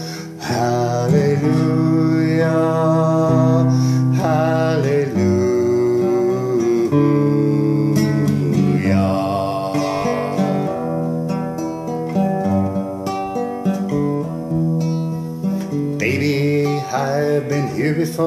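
Acoustic guitar strummed in a slow ballad, with a man singing long drawn-out notes over it.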